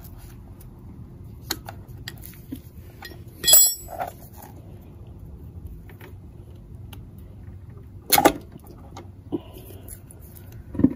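Metal parts clinking and knocking as gloved hands work at a motorcycle engine's flywheel. A few light clicks lead to one sharp, ringing metallic clink a few seconds in, then a duller knock about two-thirds through and another right at the end.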